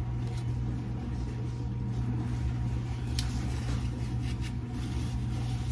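A steady low hum, with a few faint clicks about three seconds in and later.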